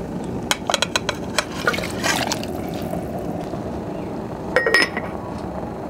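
Clinks and small splashes of water in a cooking pot, then a lid clinks down onto a clay pot with a brief ring near the end.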